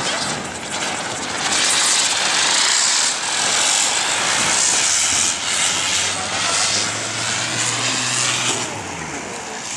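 Ground spinner firecracker (chakri) spinning and spraying sparks: a steady, loud hissing whoosh that swells and eases a little as it spins.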